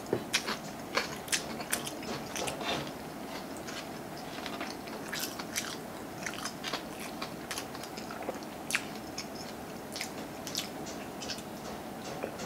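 Close chewing with wet mouth clicks and lip smacks, coming as irregular sharp clicks, thickest in the first few seconds. Fingers are licked and sucked clean.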